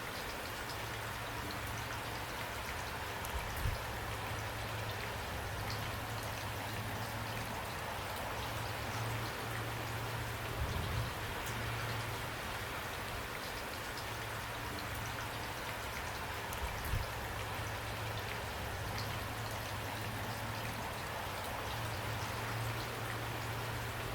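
Steady rain falling, an even hiss of many drops with scattered individual drop ticks. A few soft low thumps stand out about a third of the way in, near the middle, and about two-thirds of the way in.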